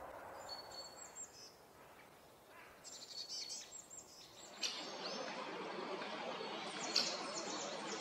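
Birds calling: short, high chips in quick little clusters, over a steady outdoor hiss. The hiss gets louder a little past halfway, with a few sharper calls near the end.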